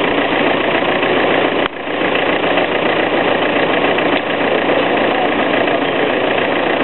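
A car engine idling steadily close by during a jump-start of a car with a flat battery. There is a brief break about two seconds in.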